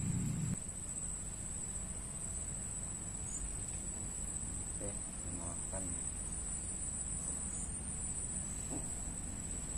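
Insects chirring steadily: one high, thin, even trill that holds throughout, over a low background rumble.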